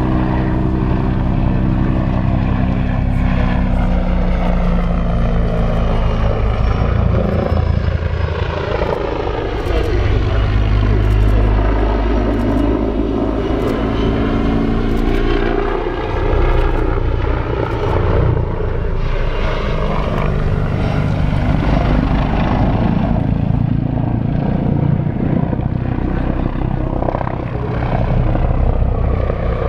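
Attack helicopter flying a low display pass: the steady drone of its engines and rotor shifts into a sweeping, phasing whoosh that rises and falls in pitch as it passes and turns overhead.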